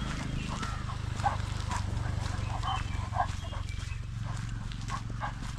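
A few short bird chirps over a steady low rumble, with irregular rustling and crunching steps of the walk.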